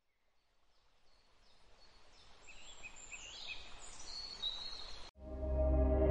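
Faint outdoor ambience with a few short bird chirps, fading in. Just after five seconds it cuts off abruptly, and loud ambient music with many held tones begins.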